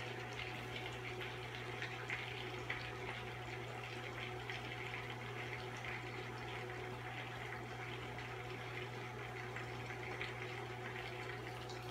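Butter and marshmallows sizzling with fine, steady crackling in a non-stick pan on a NuWave induction cooktop, over the cooktop's steady low hum.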